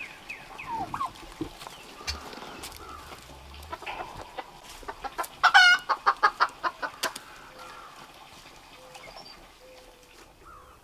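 A strutting domestic tom turkey: a low drumming hum about two seconds in, then a loud rapid warbling gobble about halfway through, followed by a quick run of short clucking calls from the flock.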